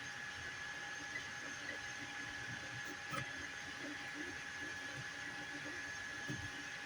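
FDM 3D printer running, with a steady whine and fan hiss and short, irregular motor notes underneath; a single click sounds about three seconds in.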